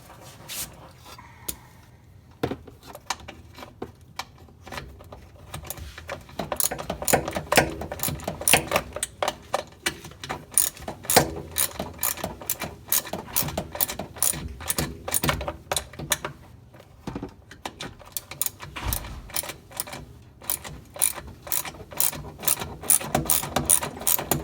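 Ratchet wrench clicking as it undoes a 10 mm screw, with a long run of quick, uneven clicks that starts about two seconds in and grows busier a few seconds later.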